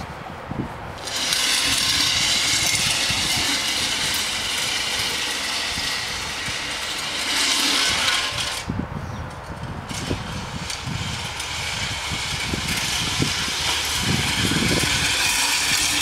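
Push sled scraping and grinding as it is driven across asphalt, with a break of about a second partway through before it scrapes on again.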